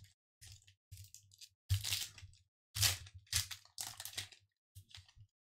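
Foil wrapper of a Pokémon Vivid Voltage booster pack crinkling and crackling as it is handled and opened, in a run of short bursts. The loudest bursts come about two and three seconds in.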